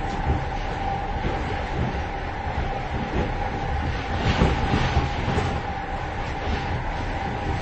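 Moving train heard from inside the vestibule between cars: a steady rumble and rattle from the running gear with a faint steady whine, and irregular clanks and knocks, a cluster of them about four to five seconds in.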